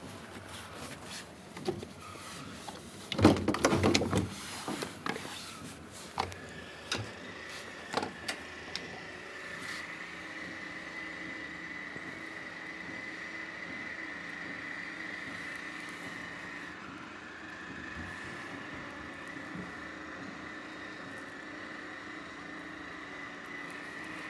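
Handling knocks and a loud clatter, then about ten seconds in a washing machine's drain pump starts and runs steadily with a high whine.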